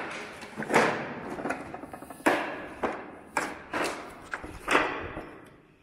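Footsteps on loose asbestos-cement slate sheets: a sharp knock and rattle at each step, about six steps, each followed by a short echo.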